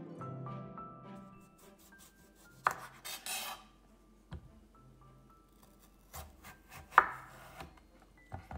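Knife cutting a peeled Korean melon on a bamboo cutting board: a few sharp knocks of blade and fruit on the board, the loudest about seven seconds in, and a short scraping rasp about three seconds in.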